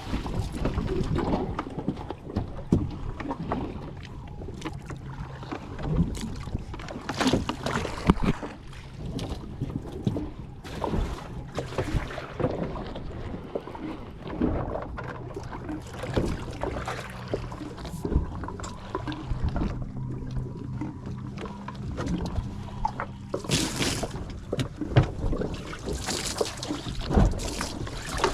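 A fishing boat's engine running steadily, with a low hum under frequent short knocks and clatter.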